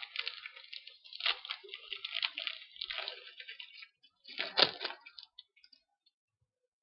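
Trading-card pack wrapper being torn open and crinkled by hand: a run of crackling, with its loudest crackle about three-quarters of the way through, stopping about a second before the end.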